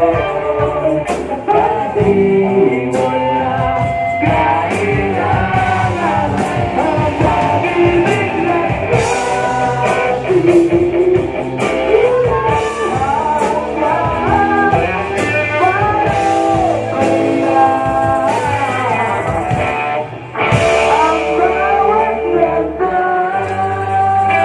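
A live rock band playing: two vocalists singing over electric guitar, bass guitar and a drum kit, with a brief break in the music about twenty seconds in before it comes back in.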